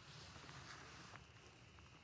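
Faint footsteps on a forest trail, a few soft steps over quiet forest ambience.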